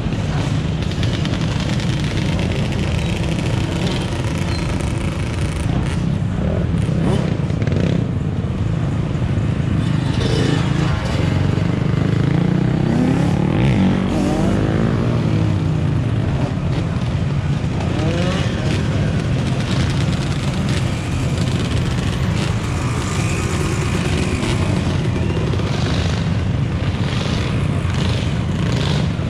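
Dirt bike and ATV engines revving among a crowd of riders, over a steady low rumble of idling vehicle engines. Several rising and falling revs stand out around the middle.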